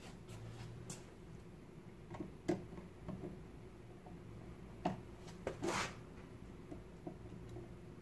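Small clicks, taps and scrapes of a screwdriver and an outlet faceplate being fitted over a 240 V receptacle, with the loudest knocks about two and a half and five seconds in, over a faint steady hum.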